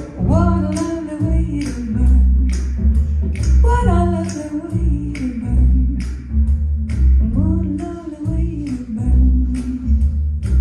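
Recorded music played through Magneplanar 3.7i panel speakers with subwoofers, heard in the room. A singing voice slides between notes over a deep bass that swells every couple of seconds, with sharp percussive clicks throughout.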